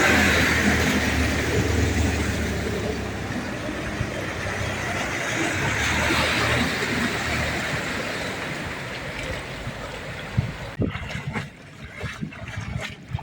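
Loud, steady rushing of floodwater with a low rumble underneath. Near the end the rushing drops away sharply, leaving scattered knocks and clicks.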